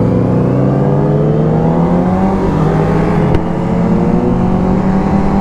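Sport motorcycle engines on the move. One engine's note climbs slowly and steadily as it pulls in a single gear, over a steady lower drone from another engine.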